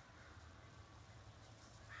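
Near silence with a faint low hum, between a crow's calls; the crow's next short call just begins at the very end.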